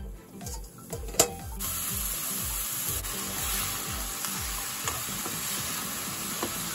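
Shimeji mushrooms frying in hot oil in a frying pan as they are turned over. A sharp clack comes about a second in, then a steady sizzle starts and keeps going.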